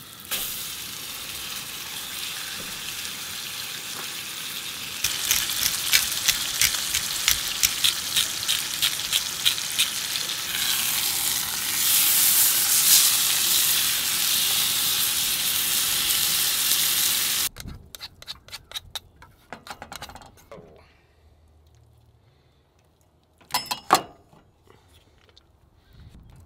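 Steak sizzling as it sears in a cast iron skillet with onions and mushrooms, with a spatula scraping and clicking against the pan. The sizzle grows louder partway through, then cuts off suddenly, leaving a few quiet knocks and one sharp clack near the end.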